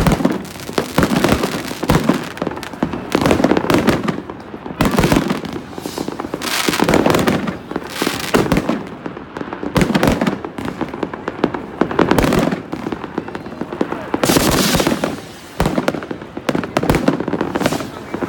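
A dense barrage of fireworks, with rockets bursting and firecrackers banging and crackling one on top of another. Loud clusters of bangs come every second or two, with no pause between them.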